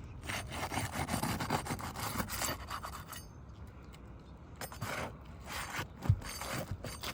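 Flat pry bar scraping and grating under asphalt roof shingles as it works the nails loose, in two spells with a quieter pause of about a second and a half between them, and a few light knocks near the end.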